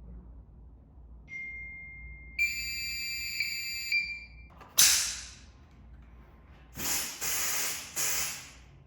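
Fire alarm system's electronic sounder giving a steady high-pitched tone, faint at first and then louder for about a second and a half. Several short bursts of hiss follow.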